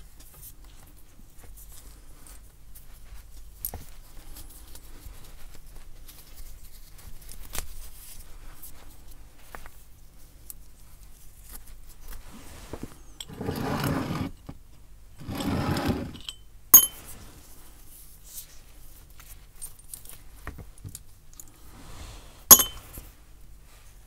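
Hands handling and working apart stiff old leather strap pieces, with light rustling and rubbing, two louder rasping rubs of about a second each midway, and two sharp metal clinks with a brief ring later on.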